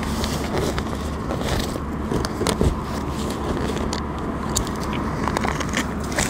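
Nylon tent fabric rustling, with scattered small clicks and scrapes as a carp tent's vestibule is fastened at its base, over a steady low hum.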